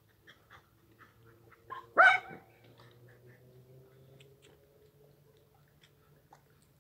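A dog barks once, short and loud, about two seconds in, over a faint steady low hum.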